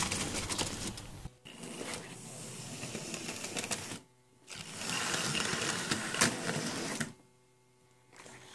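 Model railway locomotive running with passenger coaches on the track: a small electric motor whirring and wheels ticking and clattering over the rails. It drops out briefly about four seconds in and for about a second near the end.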